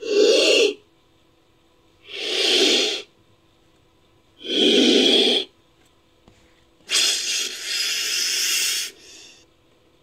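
Sound-designed Ophiderpeton creature calls built from a Titanoboa snake sound effect: three short, breathy hisses about two seconds apart, then a longer hiss of about two seconds that trails off.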